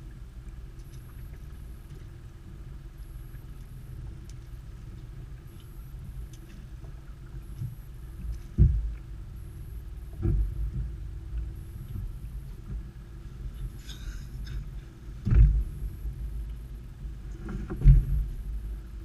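A creel knocking against the boat as it is hauled over the gunwale and set down inside: four thumps, the loudest about a third of the way in, over a steady low rumble.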